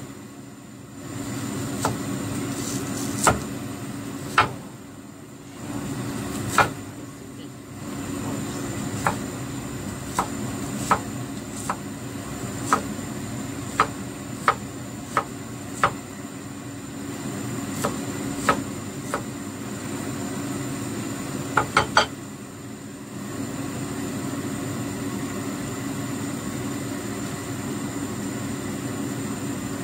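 Cleaver crushing and chopping shallots and garlic on a wooden chopping board: sharp knocks at irregular intervals, with a quick run of three about two-thirds of the way in, after which the knocking stops. A steady hum runs underneath.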